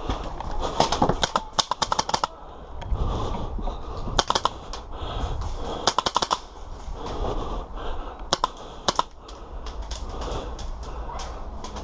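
Airsoft guns firing: a rapid burst of shots about a second in, shorter volleys near the middle, and a few single sharp cracks near the end.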